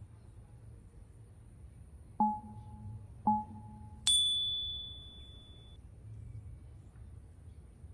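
Three-note electronic chime: two short, lower notes about a second apart, then a higher, brighter note that rings and fades over about a second and a half.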